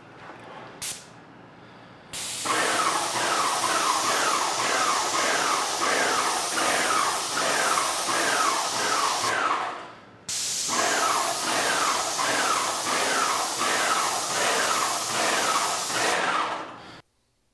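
Graco Magnum X5 airless paint sprayer spraying primer onto a wooden beam: a loud, steady hiss from the spray gun in two long passes, each about seven seconds, with a short break between them and a fast pulsing rhythm running through the hiss.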